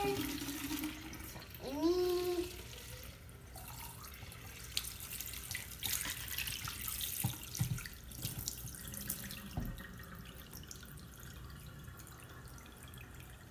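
Kitchen faucet running a steady stream of cold water into a plastic water bottle held under the tap.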